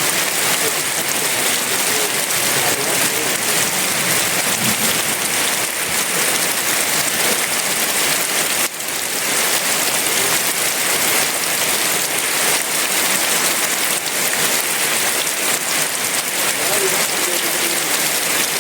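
Heavy rain falling steadily, a dense even hiss of drops on leaves and ground, with a brief sudden dip in level a little before halfway.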